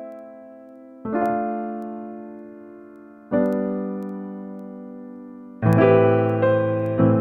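Background piano music: slow chords, each struck and left to fade, about two seconds apart, growing fuller and busier near the end.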